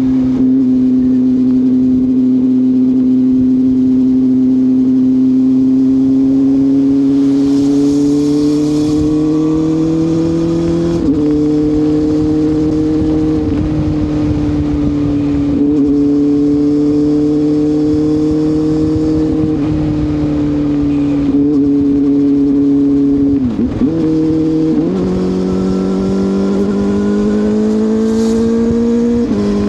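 CFMoto 500SR Voom engine running under way through an SC Project carbon slip-on exhaust, with the stock catalytic converter and pre-muffler kept. The note climbs slowly, then drops in pitch with a gear change about a third of the way in. It dips and changes again about three quarters through and once more near the end.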